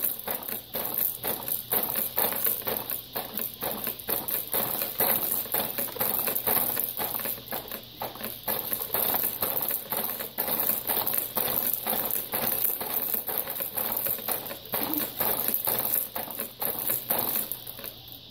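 Fisher-Price Jumperoo baby bouncer rattling and clattering over and over as a baby bounces in it: its springs, frame and attached plastic toys knocking with each bounce in a rapid, uneven run of clicks.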